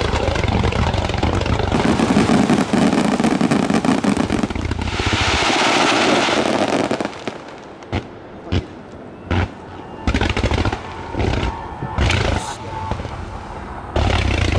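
Aerial fireworks bursting: a dense barrage of bangs and crackle for about the first seven seconds, then single loud bangs a second or so apart, and a new rapid volley near the end.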